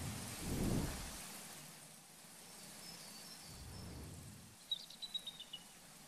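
Steady rushing hiss of falling water, with deep rumbling swells about half a second in and again around four seconds. Near the end a bird gives a quick falling series of high chirps, after a fainter high trill in the middle.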